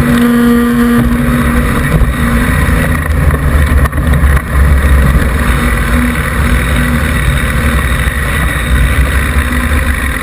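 Mountain bike rolling fast down a gravel lane, heard from a camera mounted on the fork beside the knobby front tyre: a steady loud rumble of tyre on gravel with wind buffeting the microphone.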